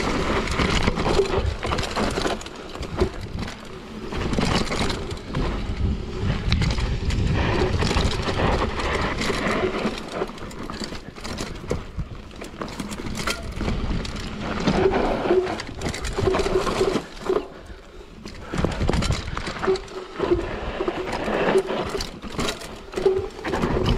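Mountain bike descending a rough dirt-and-rock trail: tyres rolling over dirt, roots and stones, with the bike rattling and knocking over bumps and wind rushing over the camera microphone. The noise eases for a few seconds about halfway through, then picks up again.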